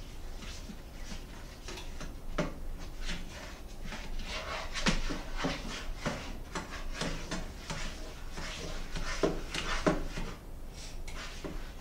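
Short, irregular scrapes and clicks of kitchen utensils working at a frying pan on a stove, coming thickest after the first couple of seconds, over a low steady hum.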